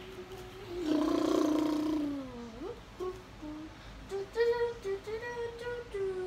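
A girl's voice humming and vocalizing without words. About a second in comes a louder, rough held note that slides down in pitch, and after it a short rise. A higher humming tune runs through the last two seconds and dips at the end.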